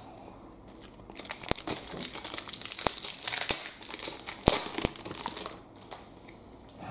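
Crinkly foil wrapper of a Magic: The Gathering booster pack being handled, a dense crackling with sharp snaps. It starts about a second in and dies down near the end.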